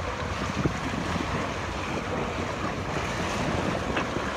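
Wind buffeting the microphone over water splashing and rushing past the hull of a sailboat under sail in a choppy sea: a steady, rough noise with no distinct events.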